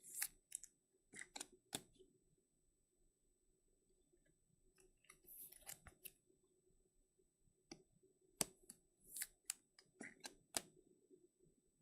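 Faint, scattered clicks and crinkles of a foil trading-card pack being opened and its cards handled, with one short rustle about halfway through.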